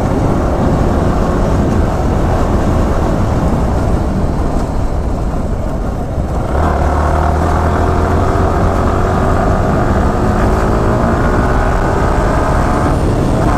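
Yamaha R15M's 155 cc single-cylinder engine running under heavy wind rush on the onboard camera. About halfway through, the engine note steps up and climbs steadily as the bike accelerates.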